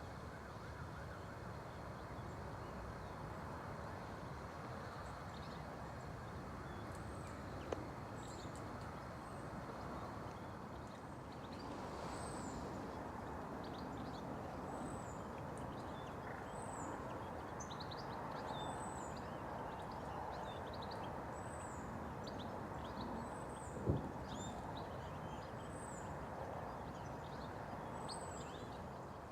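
Small birds calling faintly over a steady low background rumble. From about 12 seconds in, one bird repeats a short, very high call roughly every second and a half, among scattered other chirps. Two sharp clicks come about 8 and 24 seconds in.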